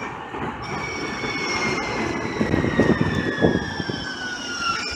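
Siemens S200 light rail vehicle passing close and slowing, its traction motor whine falling steadily in pitch over the rumble of steel wheels on the rails, with a few knocks in the middle. Near the end a higher whine cuts in.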